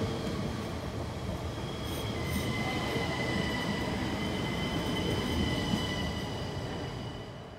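Double-deck passenger train rolling past, its wheels rumbling on the rails with a steady high-pitched wheel squeal from about two seconds in. The sound fades off near the end as the last coach goes by.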